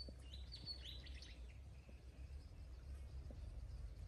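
Small birds chirping: a quick run of short, high calls, mostly in the first second and a half, over a faint, steady low rumble.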